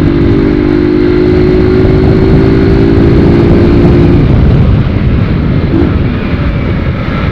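Honda CG 150 Sport's air-cooled single-cylinder four-stroke engine running at a steady speed with its air filter removed, under heavy wind rumble on the camera microphone. The steady engine note drops away about four seconds in, leaving mostly the wind rumble.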